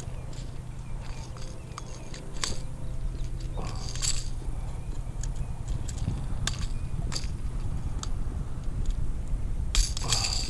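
Steady wind rumble on the microphone, with scattered light clicks and clinks of fishing tackle being handled aboard a kayak. The strongest clinks come about four seconds in and again near the end.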